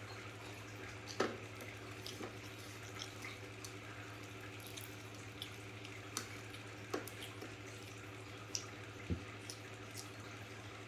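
A steady low hum with a dozen or so faint, irregular clicks and ticks scattered through it. The loudest click comes about a second in.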